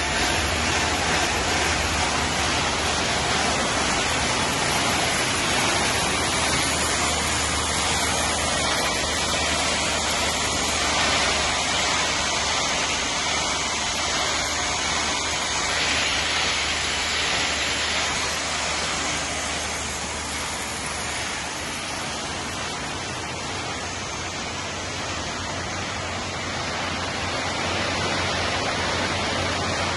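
Nut-roasting and processing machinery running: a steady, even rush of noise over a low hum.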